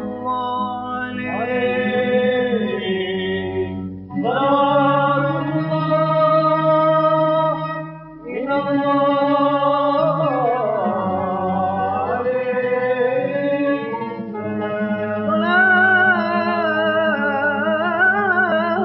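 A male voice sings an Aleppine funeral chant (tajwiq) in long, slow, melismatic wordless phrases over a steady low drone. The voice breaks off briefly about 4 and 8 seconds in, and a new, more ornamented phrase begins about 15 seconds in.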